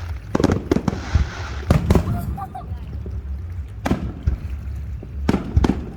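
Aerial fireworks going off in a series of sharp bangs: a quick cluster in the first two seconds, one near the middle, and two more close together near the end.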